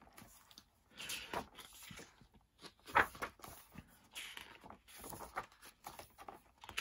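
Paper pages of a book being turned and handled: a string of short rustles and light taps, the loudest about three seconds in.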